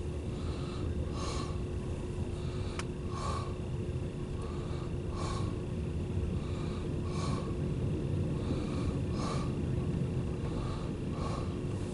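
Freight train of empty autorack cars rolling past, heard from inside a car: a steady low rumble with rhythmic wheel noise about once a second, under a steady hum.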